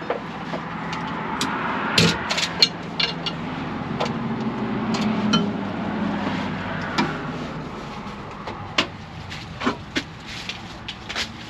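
Hand tools clanking and knocking on the combine's metal as the belt tensioners are tightened: scattered sharp clinks, the loudest about two seconds in, over a low steady hum.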